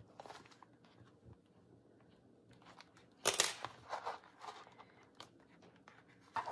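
Paper and card rustling and crinkling as a partly sewn junk journal's pages and cover are handled and turned over, with one loud crinkle about three seconds in and a few softer rustles after it.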